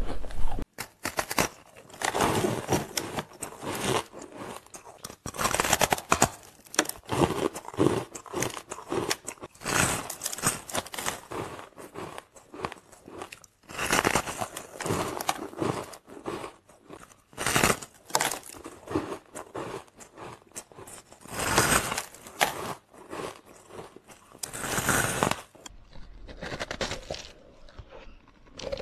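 Soft, frosty ice being bitten and chewed: repeated crunching bites and chews in short bursts with brief pauses between them.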